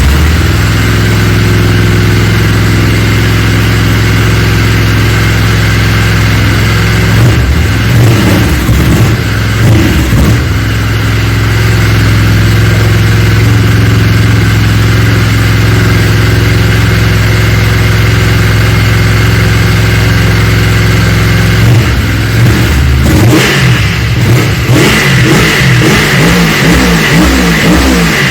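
Yamaha Phazer snowmobile's four-stroke twin engine running at idle, with uneven throttle blips around 8 seconds in and again from about 23 seconds. It is being test-run after work on the throttle and its TORS safety switch.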